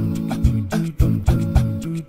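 Background music: plucked notes over a steady low beat.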